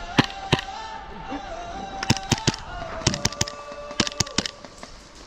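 Airsoft guns firing: sharp cracks, two single shots near the start, then three quick groups of three shots between about two and four and a half seconds in.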